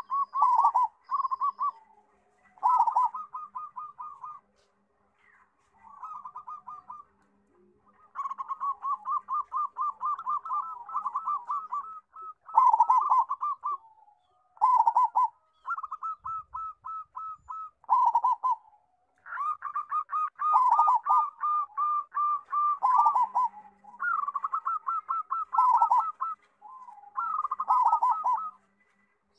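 Local-type zebra dove (perkutut) singing with a big voice: repeated phrases of rapid staccato cooing notes, each phrase a second or two long, with a few short pauses between them.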